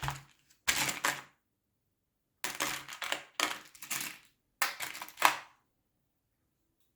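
Small metal parts and a hard plastic case handled in several short bursts of clicking and rattling.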